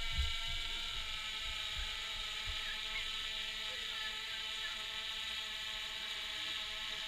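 Steady whine of a DJI Phantom quadcopter's motors and propellers in flight, holding one pitch, with a few low thumps in the first couple of seconds.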